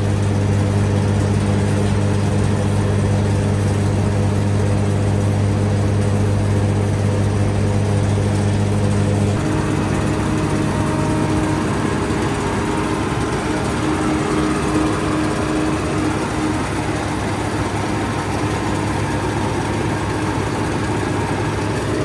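Combine harvester running at a standstill with its threshing drive engaged: the engine and the belts, chains and shafts of the threshing gear all turning. A steady low hum dominates at first and drops away about nine seconds in, leaving a busier mechanical clatter at the same loudness.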